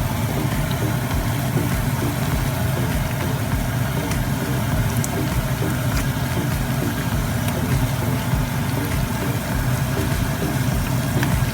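Steady low drone like an idling motor, with bananas and sugar frying in oil on low heat under it.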